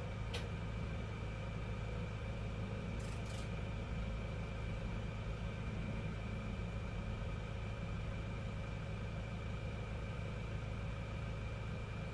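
A steady low hum with a few thin steady whines above it, like a machine running. There is a faint click just after the start and a quick pair of clicks about three seconds in.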